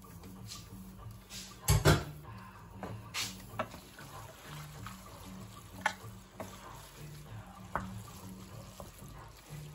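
Cooked beans emptied from a metal colander into a stainless-steel pot and stirred into rice with a wooden spoon. Two loud metal clanks come about two seconds in, then scraping and scattered knocks of the spoon against the pot. Soft background music underneath.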